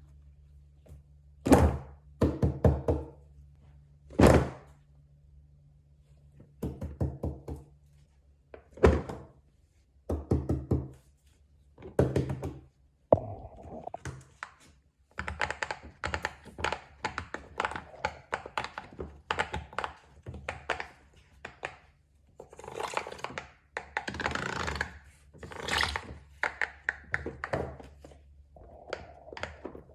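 Fidget toys handled: irregular runs of quick clicks, taps and thunks, coming thicker and faster in the second half.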